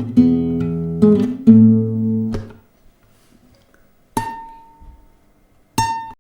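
Acoustic guitar strumming chords for about two and a half seconds, then two single high notes struck and left ringing, one near the end.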